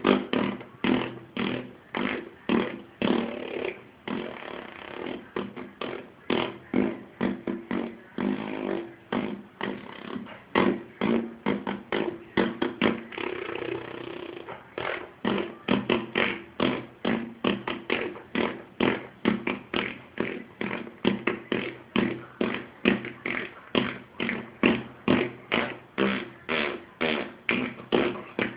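Fart noises repeated in quick succession, about two or three a second, running together into a more continuous stretch in the middle.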